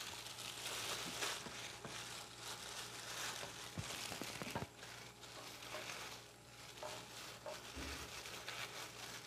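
Faint rustling and crinkling of disposable plastic gloves as a raw chicken breast is pressed and turned in a bowl of flour, with a couple of soft knocks about four seconds in.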